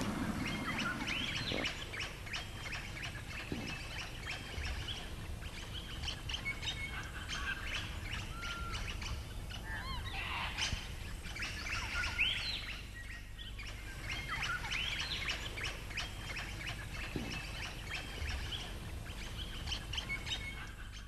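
Several birds chirping and calling over one another: many short high whistles and chirps, repeated throughout, with a few lower gliding calls.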